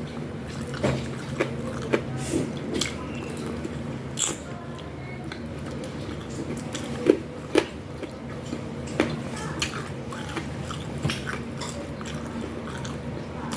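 Close-miked eating: a person chewing and biting food, with irregular sharp crunches and clicks over a steady low hum.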